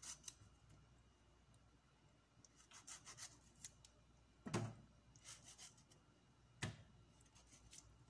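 Light scraping and rubbing of a small knife and fingers on tomato skins as damaged spots are trimmed, in short scratchy clusters. A soft thud about halfway and a sharp knock a couple of seconds later, tomatoes set down on the counter.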